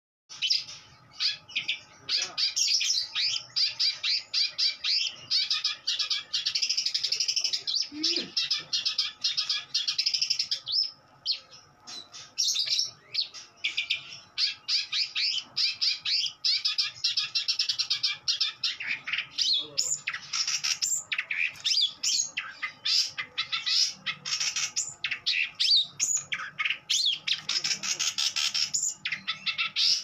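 Caged songbird singing a fast, continuous stream of rapid chirps and trills, broken by a short lull about a third of the way through.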